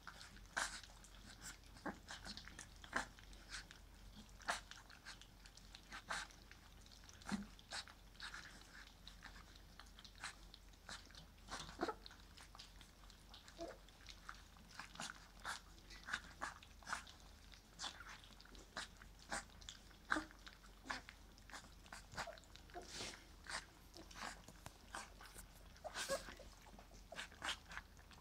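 A litter of puppies eating soft food from stainless steel bowls: quiet, irregular lapping, smacking and chewing clicks, a few a second.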